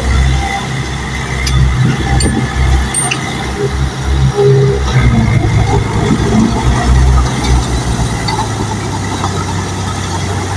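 Bulldozer's diesel engine running under changing load, growing louder around the middle and settling to a steadier note near the end, with a few light clicks in the first few seconds.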